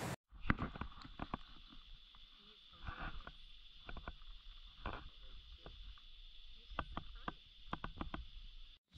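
Night outdoor sound: a steady high-pitched insect chorus, with scattered sharp clicks and rustles as a large bullfrog is handled.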